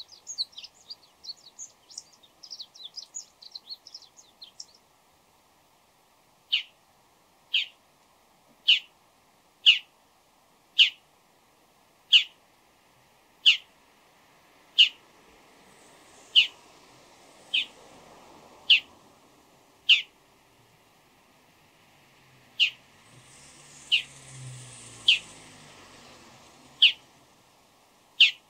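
Bull-headed shrike calling: a fast chatter of short, high notes for the first few seconds, then, after a brief pause, single sharp high calls repeated about once a second.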